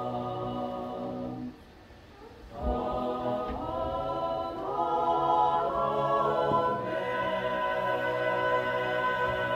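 Small mixed group of men's and women's voices singing a cappella in harmony. A held chord breaks off about a second and a half in; after a short pause the voices come back in, move through several chords and settle on a long held chord.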